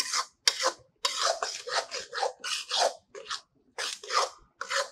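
Steel ladle scraping and stirring a thick halwa mixture around an aluminium kadhai in quick rasping strokes, about three a second. The mixture is being roasted (bhuna) until it stops sticking to the pan.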